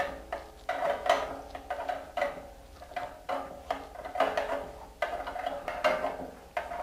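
Branick strut spring compressor working a coil spring down, with repeated metal clinks, about two or three a second and a little uneven, each leaving a short metallic ring.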